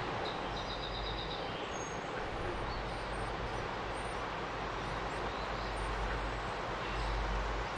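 Steady rushing of whitewater river rapids, with a bird's few short high chirps about half a second to a second and a half in.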